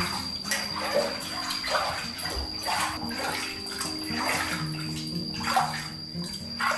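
Water splashing and trickling in a plastic basin as a hand scoops it up and pours it over a baby monkey, in repeated splashes about once a second. Soft background music plays underneath.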